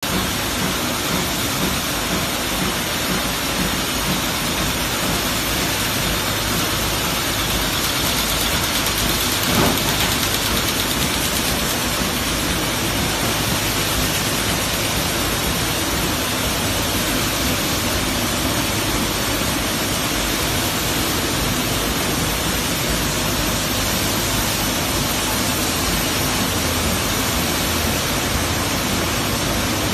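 Steady din of a dry-cell battery production line, its rotary assembly machines running continuously, with one sharper knock about ten seconds in.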